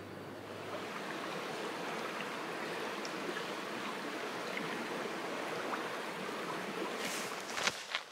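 Wet Beaver Creek's shallow water running in a steady rush. About seven seconds in, a few footsteps on a dirt trail.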